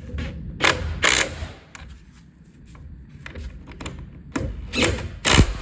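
Hand tools and plastic and metal blower parts knocking and clattering during reassembly: a handful of sharp knocks, the loudest near the end.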